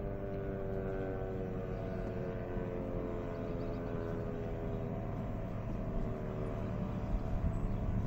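Sentry 3V8-H electromechanical outdoor warning siren sounding a low tone that slowly falls in pitch as it winds down; this unit is a failing siren that struggled to get up to speed.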